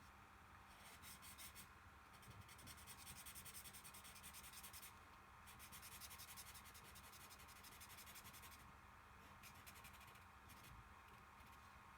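Faint scratching of a drawing tool on cardboard in quick back-and-forth colouring strokes, shading in a drawn moon. The strokes come in runs of a few seconds, with a short pause about five seconds in and a quieter, broken stretch near nine seconds.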